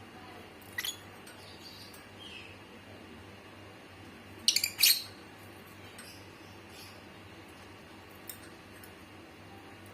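A small bird giving short, sharp high-pitched chirps: one about a second in, a quick cluster of several, the loudest, around the middle, and a faint one near the end.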